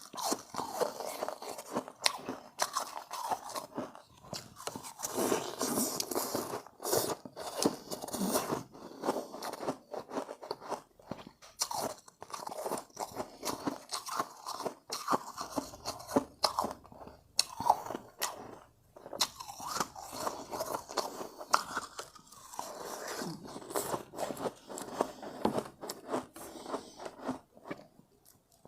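Close-up crunching of refrozen shave ice being bitten and chewed, a steady run of irregular crisp crunches with a few brief pauses between bites.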